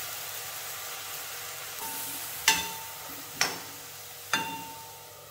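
Fiddlehead ferns sizzling in an aluminium kadai while a metal ladle stirs them, then the ladle knocks three times on the pan, about a second apart, each knock ringing briefly.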